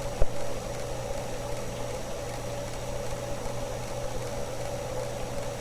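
Steady low hum and hiss of background noise, with a single short click about a quarter second in.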